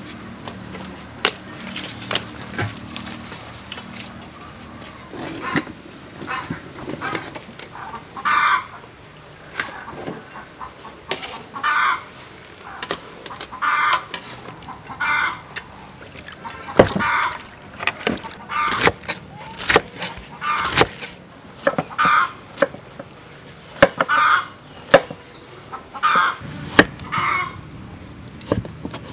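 Chickens clucking over and over, with a cluck every second or two from about a quarter of the way in. Sharp clinks and knocks of metal cooking utensils come in between.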